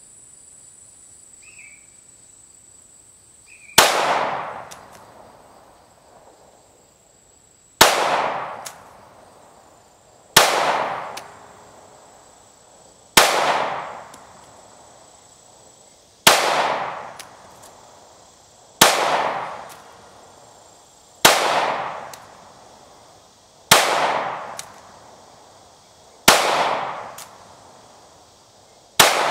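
Glock 19 Gen 4 9mm pistol firing ten single shots of 124-grain full-metal-jacket ammunition, spaced about three seconds apart, each sharp report trailing off in an echo. Insects hum steadily before the first shot, about four seconds in.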